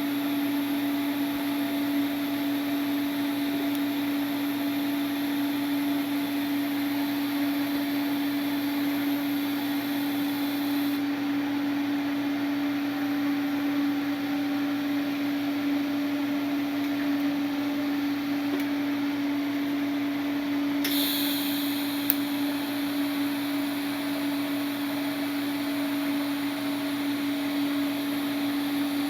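A steady machine hum with one strong constant tone and a hiss over it. The high hiss drops away about eleven seconds in and comes back sharply about ten seconds later.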